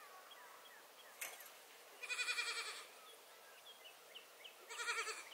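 Nigerian Dwarf goats bleating: two wavering bleats, the first about two seconds in and lasting under a second, the second near the end. A brief click comes about a second in, with faint bird chirps in the background.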